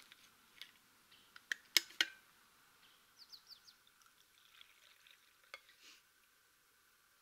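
Steel vacuum flask being opened and poured: a few sharp clicks and knocks of the cap and cup about two seconds in, then liquid trickling into the cup, with a last small click near the end.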